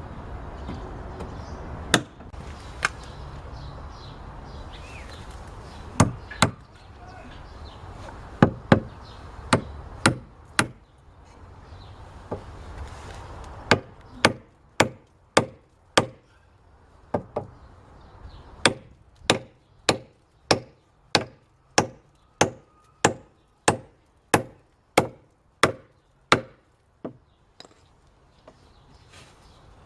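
Hammer striking wood: a few scattered blows, then a steady run of about two blows a second from about halfway through, stopping a few seconds before the end.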